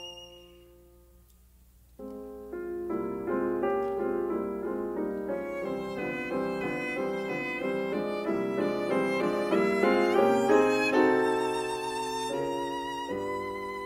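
Instrumental background music. A held note fades into a near-quiet pause, then about two seconds in a lively piece of quick, rapidly changing notes comes in and builds, with wavering held notes near the end.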